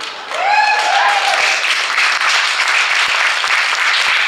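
Audience applauding and cheering, with one loud whoop about half a second in.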